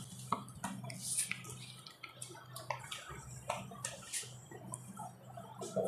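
Faint, irregular clicks and taps of hands handling things, over a low steady hum.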